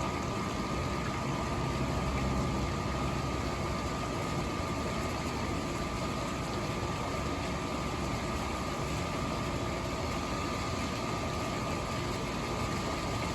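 Steady rushing storm noise of rain and wind over a constant low hum and a thin, steady high whine, unchanging throughout.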